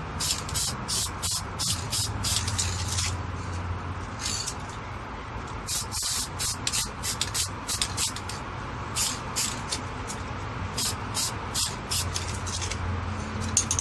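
Aerosol spray paint can hissing in rapid short bursts, about three a second, with a couple of brief pauses.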